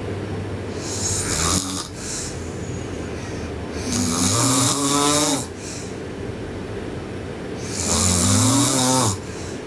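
A sleeping girl snoring: three snores about four seconds apart, the first short and the other two longer, each a pitched, buzzing rattle with a breathy hiss.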